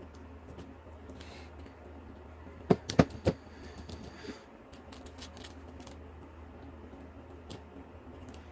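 Small plastic slime charms being picked off a tub of jelly slime and handled: light clicks and taps against hard plastic, with three sharper clicks close together about three seconds in.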